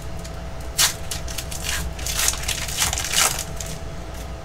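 Wrapper of a baseball card pack crinkling and tearing as it is opened and the cards are pulled out, in irregular crackles with sharper ones about a second in and around three seconds in.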